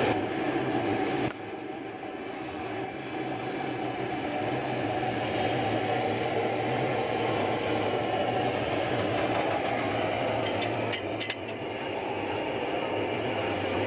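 Vintage tractor engine running steadily, with a few light metallic clinks about eleven seconds in.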